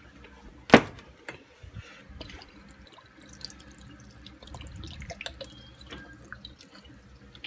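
Sauce pouring and dripping from a bottle onto sliced venison in a stainless steel bowl, with small scattered drip ticks. One sharp click about three-quarters of a second in is the loudest sound.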